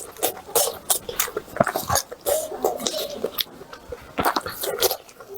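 Close-miked eating sounds: irregular wet chewing, smacking and small clicks of mouth and food.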